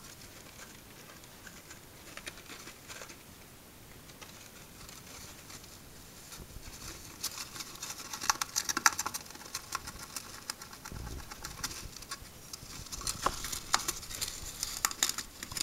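Hamster gnawing and chewing a cardboard toilet roll tube: rapid crunching clicks, faint at first, then louder and denser from about halfway through.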